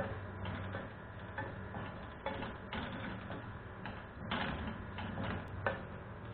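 Wooden spatula stirring and scraping a dry grated-coconut mixture in a nonstick wok, with irregular light taps against the pan, over a low steady hum.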